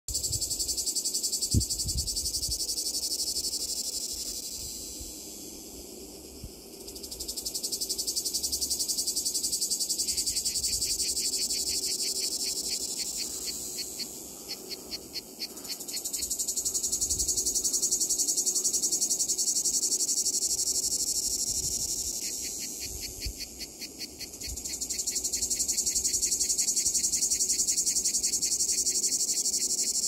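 Two cicada species singing together. The great cicada (Lyristes plebejus) gives a loud, high continuous buzz that swells and fades in long waves. The ash cicada (Cicada orni) gives a rhythmic song of rapid, evenly spaced pulses, which joins about ten seconds in and again near the end. A single low thump sounds near the start.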